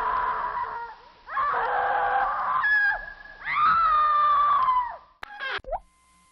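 Cartoon squeak sound effect: three long, rasping creaky squeaks, each about a second and a half, then two short quick squeaks a little after five seconds in.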